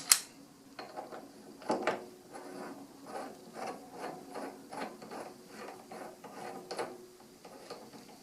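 Metal lathe tool post parts being handled and fitted: a sharp metallic clink at the start, a knock just under two seconds in, then a run of light, fairly regular mechanical clicks, about two a second.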